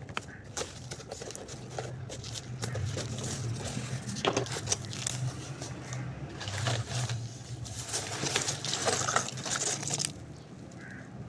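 A cardboard box and its packaging being handled and opened: irregular rustling, scraping and tapping, busiest in the second half.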